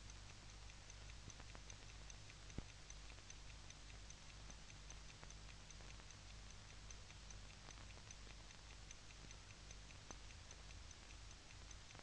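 Near silence: a faint low hum with a faint, regular ticking about four times a second, and an occasional soft click.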